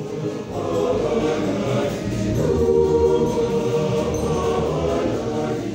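A large mixed choir of men and women singing together in harmony, holding sustained chords that swell to their loudest about two to three seconds in.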